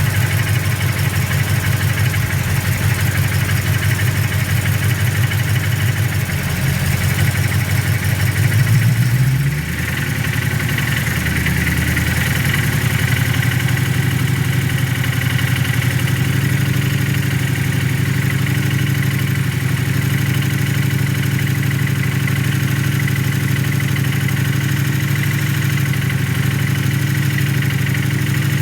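Freshly rebuilt engine idling with the knocking sound that worries its owner. About eight seconds in it revs up briefly, then drops back to a steady idle.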